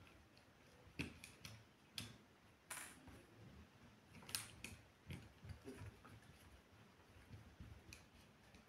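Scattered light clicks and taps, with one brief scrape, from the small plastic parts and tools of a mobile phone being handled during disassembly.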